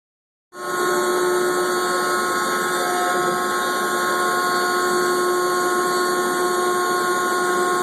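CNC router spindle running steadily with a high, even whine, starting about half a second in; it is nice and quiet for such a machine.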